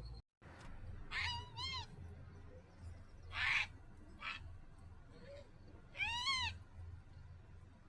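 An animal's short, high-pitched calls, each rising and falling in pitch: two in quick succession about a second in, a single one near six seconds, and a breathy huff in between.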